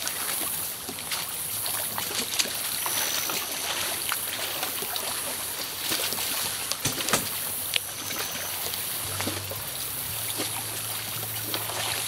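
Feet wading and splashing through shallow river water, with scattered sharp knocks near a small boat.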